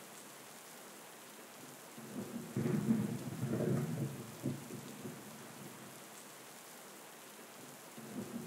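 Thunderstorm: steady rain falling, with a roll of thunder rumbling up about two and a half seconds in and dying away by about five seconds.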